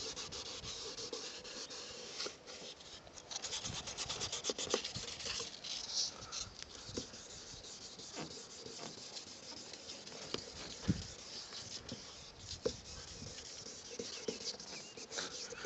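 Wet sandpaper rubbed by hand over a car's plastic side-mirror housing, a faint irregular scratching as the peeling clear coat is sanded down and feathered into the paint.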